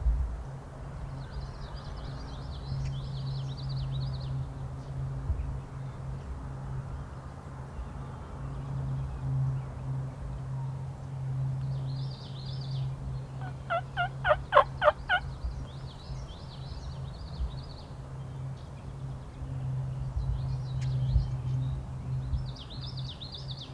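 Wild turkey calling: one quick series of about eight clipped, evenly spaced yelping notes about fourteen seconds in. Small songbirds sing short high phrases at intervals, over a steady low hum.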